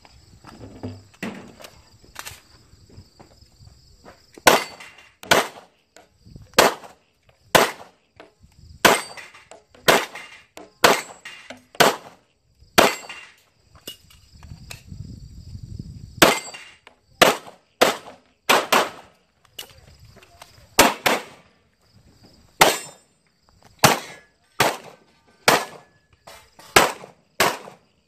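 Handgun fired in a fast course of fire: about two dozen sharp shots in quick pairs and short strings, each with a brief echo. A break of a few seconds past the middle separates the strings.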